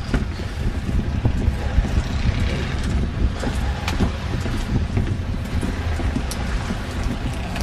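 Wind buffeting the microphone as a low, uneven rumble, with a few faint clicks.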